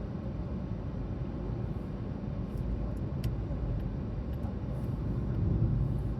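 Steady low road and engine rumble heard inside the cabin of a moving car, swelling slightly near the end, with a faint click about three seconds in.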